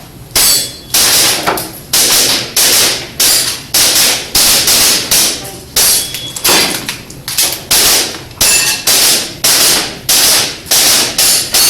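Gas airsoft pistol firing a steady string of shots, about one every half to two-thirds of a second, each a sharp crack with a short decay, during a timed IPSC-style practical shooting run.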